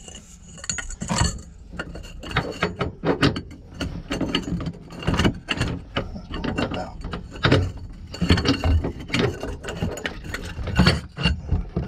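Socket ratchet wrench clicking in irregular runs of quick clicks as it turns the nut on a boat engine mount.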